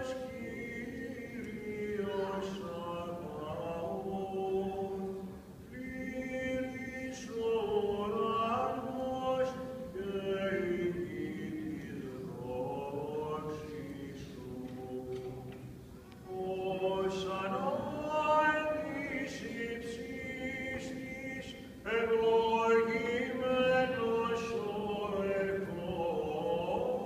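Byzantine chant in a Greek Orthodox service: a man's voice chanting a winding melody in long phrases, with short breaks between them and a louder phrase starting about 22 seconds in.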